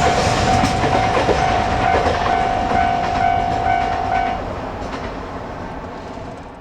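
Freight train of container wagons rolling past, wheels clattering over rail joints, fading steadily as the train goes by. A level-crossing warning alarm rings with a steady tone and repeated strikes about twice a second, then stops about four seconds in.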